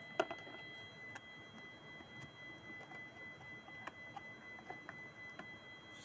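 Scattered light clicks and taps of handling, the strongest just after the start, over a steady high-pitched tone.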